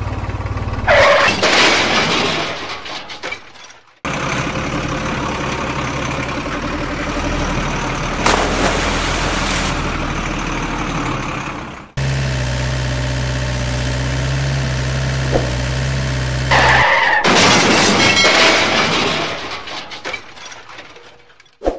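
Steady vehicle engine sound effects laid over toy vehicles, changing abruptly at cuts about four seconds in and again about twelve seconds in. A loud impact effect comes about a second in and another near the end, each dying away over a few seconds.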